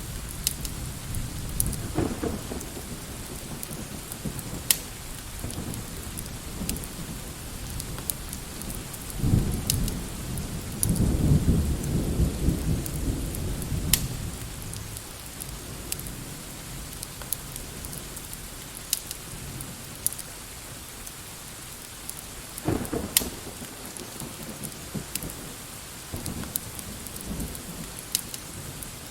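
Steady rain with low rolls of thunder, the loudest from about nine to thirteen seconds in, with scattered sharp ticks on top.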